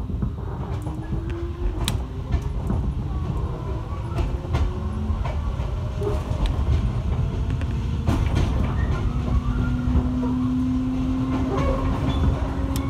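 205-series electric commuter train gathering speed, heard from inside the car: a steady low rumble of wheels and running gear with scattered clicks over the rail joints, and a motor whine that slowly rises in pitch.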